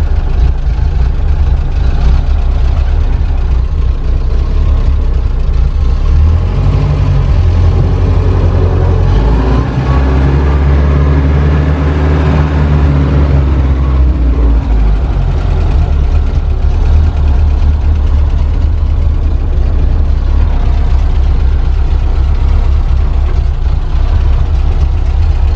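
1930 Ford Model AA truck's four-cylinder flathead engine running under way in low gear. The revs climb from about six seconds in, hold higher for a few seconds, then drop back to a steady run.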